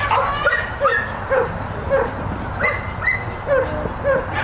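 A dog barking in quick, even repetition, about two barks a second, typical of an excited dog running an agility course.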